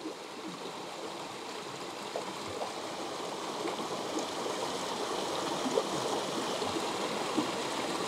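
Steady rush of a small waterfall and stream. A few faint clicks come through as the camera is tilted on its tripod head.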